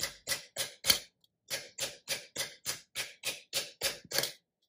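Nylon mallet striking a sunk copper disc on a metal mushroom stake: rapid, even blows about four a second, with a brief pause about a second in, as the dome's surface is smoothed.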